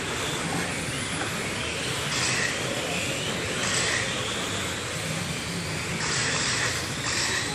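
Several LMP-class electric radio-control race cars running laps on an indoor carpet track. Their motors and tyres make a steady whirring that swells each time cars pass close by.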